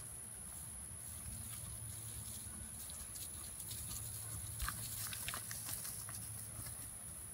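Horse trotting over grass on a lunge line, its hooves landing in soft, faint thuds, with a few sharper knocks around five seconds in.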